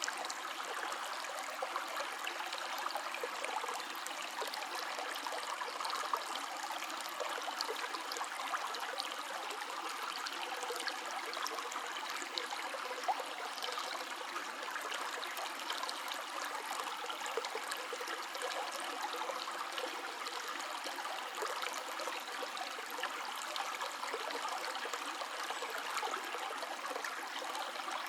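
Steady flow of a river or stream: water running and babbling over rocks, with many small splashes and trickles.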